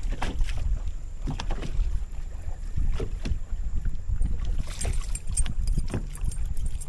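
Steady low rumble on a bass boat, broken by scattered short knocks.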